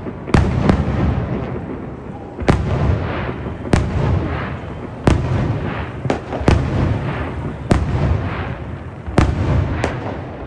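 Aerial firework shells bursting overhead: about nine sharp bangs, roughly one every second or so, each trailing off in a rumbling echo.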